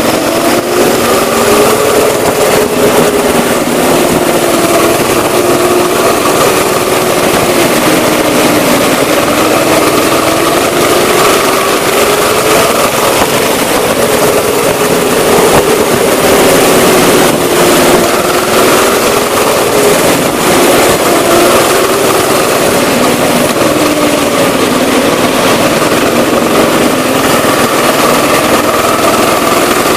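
Go-kart engine running hard at close range, its pitch rising and falling repeatedly as the kart speeds up on the straights and eases off for the corners.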